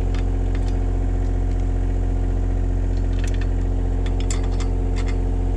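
Kubota KH-60 mini excavator's diesel engine idling steadily, with a few short metallic clicks from about three seconds in.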